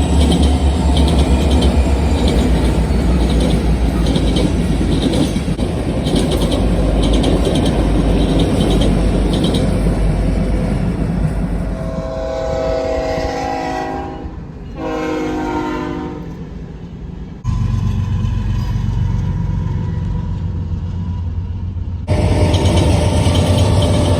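Freight train rumbling past with rhythmic wheel clicking over the rails. About halfway through, a locomotive's multi-chime air horn sounds two blasts, and then the rumble resumes.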